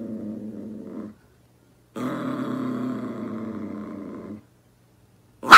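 Small dog growling low and steadily in two long growls, the first trailing off about a second in and the second lasting about two and a half seconds, a warning growl over a treat it is guarding from a budgerigar. A short, much louder sharp sound cuts in at the very end.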